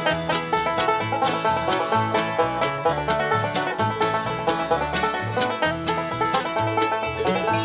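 Instrumental break of a string-band song: quick picked string notes over a moving bass line, with no singing.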